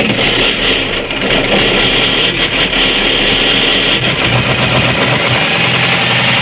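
Caterpillar 3208 V8 marine diesel being cranked over on its starter for a start attempt, loud and continuous, with a steadier low engine note coming in about four seconds in. The engine is being tried after its stuck injection-pump plungers and barrels were repaired.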